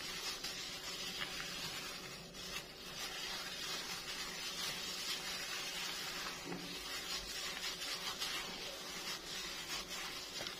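A hand in a plastic glove mixing moist semolina basbousa batter in a bowl: a steady, soft rubbing noise.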